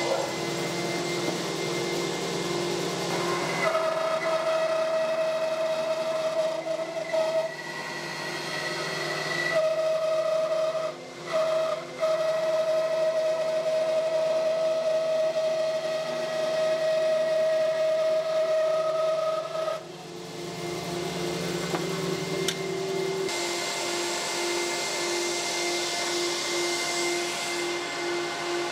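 A bandsaw running with a steady whine as it rips maple boards into strips, with a dust extractor running alongside. The machine tone changes abruptly several times, dips twice briefly about 11 to 12 seconds in, and in the last few seconds a planer-jointer runs, with more hiss.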